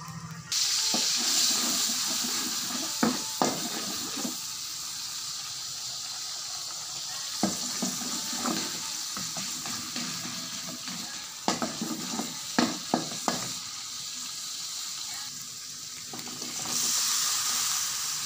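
Chopped aromatics frying in hot oil in an aluminium wok: the sizzle starts suddenly about half a second in as they hit the oil. A metal spatula scrapes and knocks against the wok during stirring. Near the end the sizzle grows louder as sliced green chillies go into the pan.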